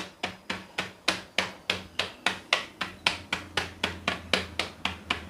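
Wooden mathu (churning masher) tapping turkey berries spread in a plastic bag, a quick even run of light knocks, about five a second, crushing the berries flat.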